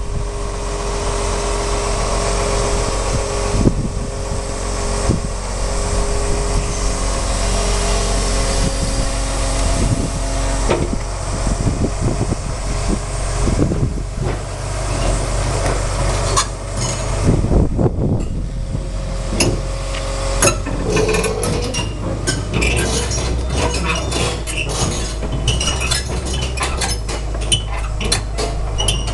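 Komatsu PC228 hydraulic excavator's diesel engine running steadily, with repeated metallic clanks and clinks that grow thick and fast in the second half.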